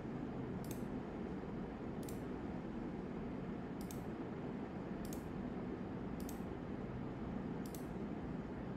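Computer mouse clicking six times at uneven intervals over a steady low hum of background noise.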